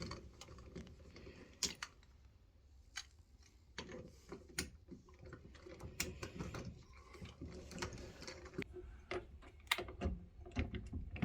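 Irregular small clicks and taps of door-lock hardware being handled and screwed in: a Kwikset knob and deadbolt assembly being fitted into a door.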